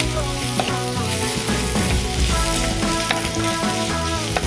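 Chopped onions sizzling as they fry in oil in a clay pot, stirred with a ladle with a few light clicks, sautéing toward golden brown. Background music with sustained notes plays along.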